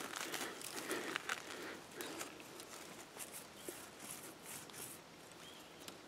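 Faint rustling and crackling of leaves and twigs as undergrowth is brushed and pushed aside, with many small crinkling clicks, growing quieter toward the end.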